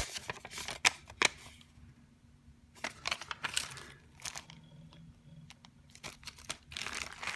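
Papers and small plastic packaging being handled: an uneven run of rustling and crinkling with a few sharp clicks, thickening into continuous crinkling near the end.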